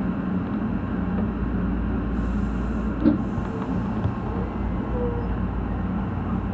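Electric commuter train rolling slowly into a terminus platform, heard from the driver's cab: a steady low running noise with one sharp click about three seconds in.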